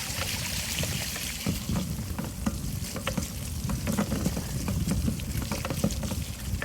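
Bicycle tyres rolling through shallow floodwater on a trail: a continuous crackling splash with many small irregular clicks and spatters over a low rumble.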